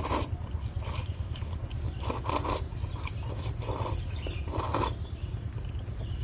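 Mouth sounds of someone eating instant noodles: short, irregular chewing and slurping noises over a steady low hum.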